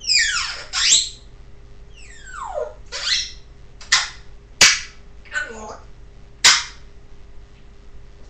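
Pet parrot making a run of loud calls: screeches that fall steeply in pitch, mixed with three sharp, very short cracks, the loudest a little over halfway through.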